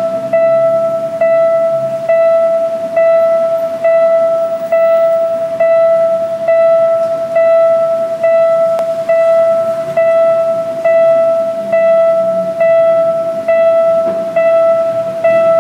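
Railway level-crossing warning bell ringing: one steady pitched ding repeated evenly a little under once a second, each stroke fading before the next. It signals that a train is coming and the crossing barriers are lowering.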